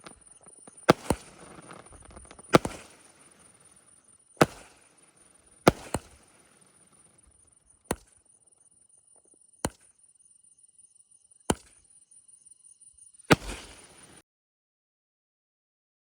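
Fireworks going off: about ten sharp bangs, one every one to two seconds, some in close pairs, over a steady high-pitched whine. The sound cuts off abruptly near the end.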